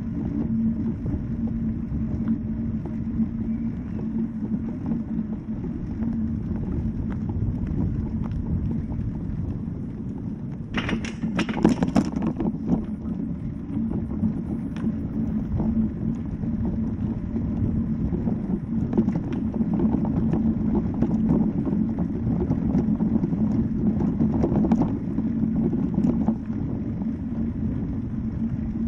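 Motor scooter running steadily as it rides along, a low rumble with a constant hum and road and wind noise. A louder rattling burst comes about eleven seconds in, and a few sharp knocks come later.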